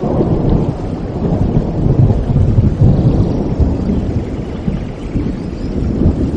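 Rolling thunder rumbling over steady rain, swelling at the start and loudest about two to three seconds in.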